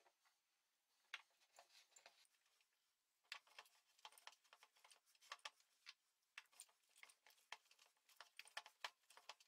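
Faint, irregular soft clicks and squishes of hands kneading a stiff maida-and-ghee dough in a glass bowl, sparse at first and more continuous from about three seconds in.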